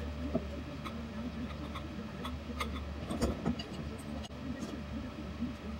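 Light metallic clicks and clinks as the parts of a Harken roller-furling drum are handled and worked with pliers, over a steady low hum; a short cluster of knocks comes about three seconds in.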